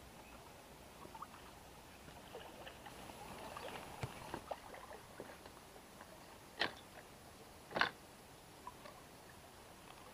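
Faint rustling and small knocks as a wels catfish is handled in gloved hands aboard a kayak, with two short, louder knocks about six and a half and eight seconds in.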